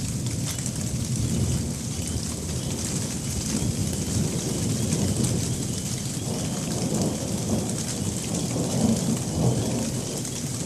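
Steady rain falling with rolling thunder rumbling low underneath, swelling a couple of times near the end.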